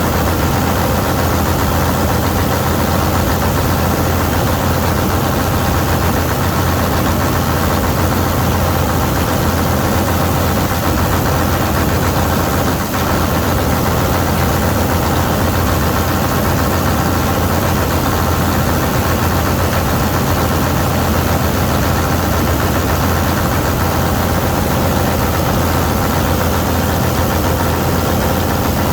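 Vistula KZB-3B combine harvester running steadily as it cuts grain, a loud, even engine and machinery drone.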